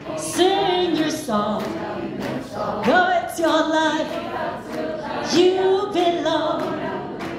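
A woman singing into a microphone through a PA, wordless vocal lines with swooping rises in pitch and vibrato.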